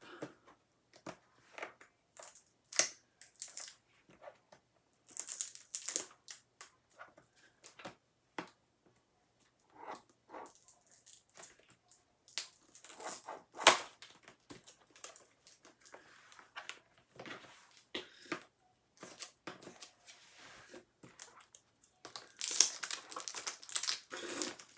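Plastic shrink wrap crinkling and crackling as it is picked at and pulled by hand, in irregular bursts with sharp snaps. The loudest crackle comes about halfway through, and a dense run of crinkling near the end.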